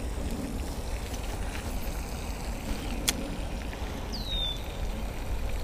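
Steady low rumble of wind on a GoPro's microphone while a spinning rod and reel are worked. A single sharp click comes about three seconds in, and a short high whistle falls in pitch a second later.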